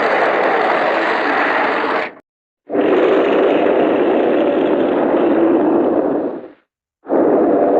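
Werewolf growl-roar sound effect: a harsh, unpitched roar that cuts off about two seconds in, a second one lasting about four seconds, and a third starting near the end.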